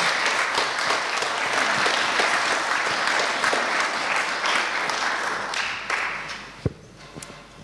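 Audience applauding, dying away about six seconds in, with a single sharp knock just after.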